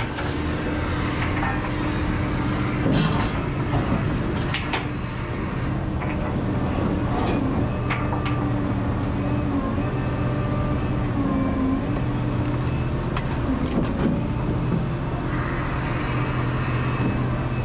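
Liebherr R976 crawler excavator's diesel engine running steadily under hydraulic load as the boom and bucket work in a trench, with sharp knocks and rattles in the first few seconds and a hiss near the end.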